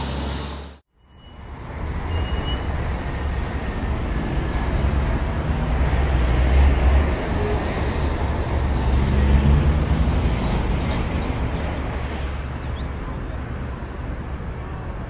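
Roadside street noise: a steady low rumble with road traffic going by, louder through the middle. The sound cuts out briefly under a second in.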